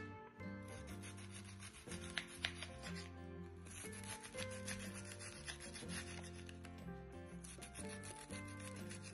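Kitchen knife slicing through a head of white cabbage on a wooden cutting board: quick, crisp repeated cuts that become rapid and steady after about three seconds, over background music.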